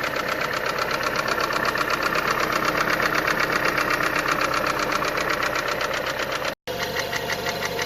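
Renault Megane 2 1.6-litre engine idling with a rapid, even knocking that came on after an oil leak. The sound cuts out for a moment near the end, then the same knocking idle carries on.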